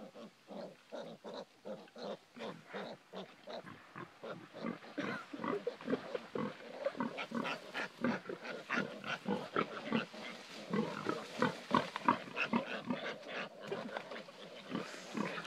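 Tamworth piglets grunting in quick short calls, several a second, growing busier and higher about five seconds in.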